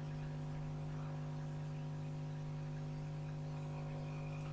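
Steady electrical hum: a low tone with a stack of even overtones, unchanging throughout.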